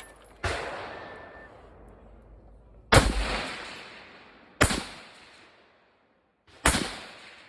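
Four gunshots, spaced about one and a half to two seconds apart, each with a long echoing tail. The first is quieter than the other three.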